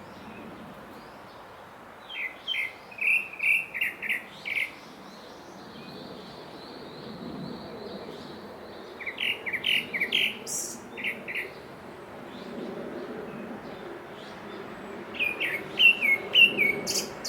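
Grey-backed thrush singing: three short phrases of quick whistled notes, each about two seconds long, coming roughly six seconds apart.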